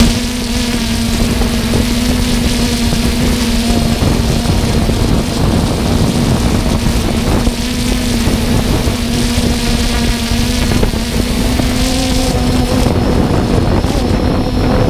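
3DR Solo quadcopter's electric motors and propellers, heard from the GoPro carried on the drone, making a steady hum over a rough rush of air buffeting the microphone while the drone hovers. The hum's pitch edges up a little about twelve seconds in as the drone climbs and moves off.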